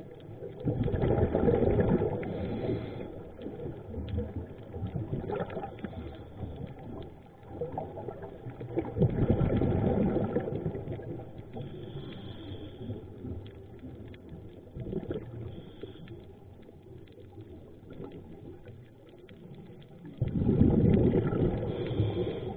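Scuba regulator exhalations heard underwater: three bursts of bubbling exhaust about ten seconds apart, near the start, around nine seconds in and near the end, with quieter underwater background between them.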